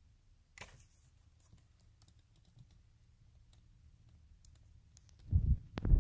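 Faint low vehicle-cabin hum with scattered light clicks, then loud low thumps and rubbing about five seconds in: handling noise from a phone's microphone being moved and brushed against things.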